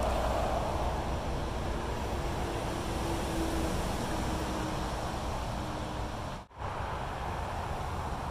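Steady traffic noise from the surrounding motorway and dual carriageway, dropping out for a moment about six and a half seconds in.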